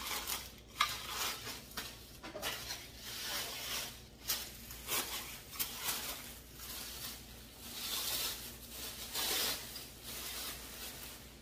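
Plastic packaging bag and white wrapping crinkling and rustling as a picture frame is unwrapped by hand, rising and falling unevenly with small sharp crackles throughout.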